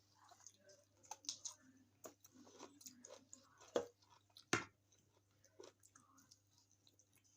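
Close-miked mouth sounds of a person chewing food: soft wet clicks and smacks, with two louder sharp smacks a little past the middle.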